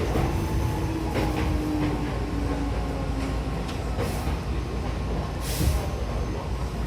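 Cabin noise of a Hankyu 7000-series electric train pulling into a station: a steady running rumble with a low motor whine that fades over the first few seconds. A few clacks sound over it, and a brief hiss comes about five and a half seconds in.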